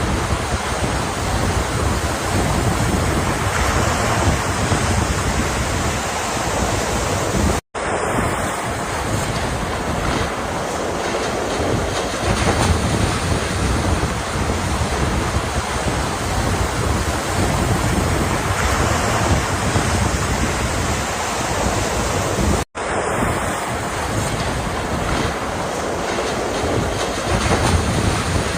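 Ocean surf washing continuously, with wind rumbling on the microphone. The sound cuts out for an instant twice.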